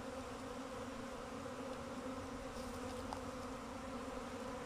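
Swarm of honeybees buzzing: a steady drone of many bees in flight around a hive box as the swarm settles into it.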